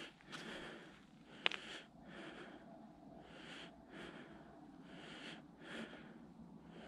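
Faint footsteps crunching on snow-covered ice, about one and a half steps a second, with a single sharp click about a second and a half in.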